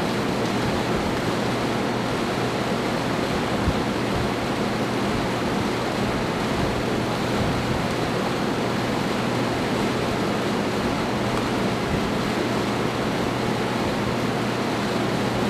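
Steady rushing background noise with a low hum, the kind of constant roar a ventilation or air-handling system makes in a shop; a single faint knock about four seconds in.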